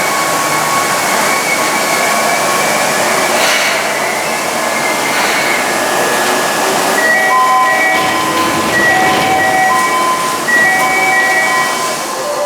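Steady train noise at a station platform. About halfway through, an electronic chime starts: a short figure of a few clear notes, repeated several times over the train noise.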